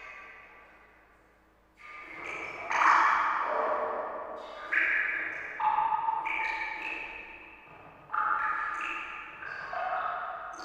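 Water drops plinking, each a ringing ping that fades over a second or two, falling irregularly about every one to two seconds.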